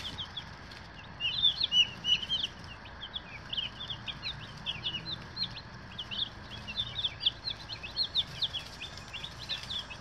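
A brood of day-old meat chicks peeping: many short, high cheeps overlapping almost without a break, after a brief lull at the start.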